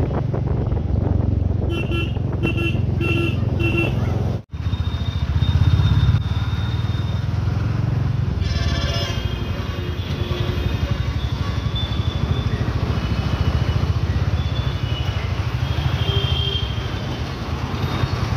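Motorcycle ridden through road traffic: a steady low engine and road rumble. Vehicle horns honk over it, with a run of four short beeps about two seconds in and more horn toots later on.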